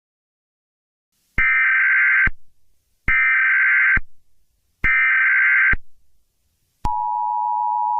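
Emergency Alert System header: three bursts of digital data tones, about a second each, then the steady two-tone EAS attention signal starting near the end. It announces an emergency alert broadcast.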